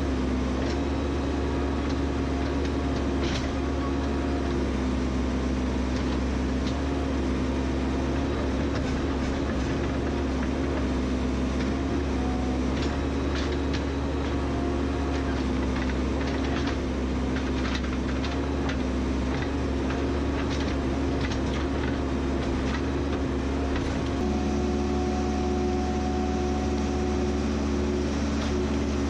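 A heavy machine's engine, most likely the backhoe, running steadily with scattered clanks and knocks, with a small change in engine pitch near the end.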